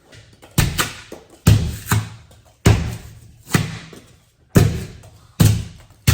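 Heavy thuds against a door, about one a second, each a sharp knock with a short ring-off, as the doggy door is fitted into the metal-and-foam door.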